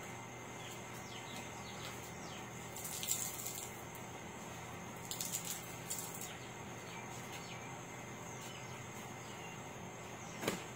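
Outdoor ambience: faint bird chirps and a steady, high insect hum, with brief rustles of clothing being handled twice and one sharp click near the end.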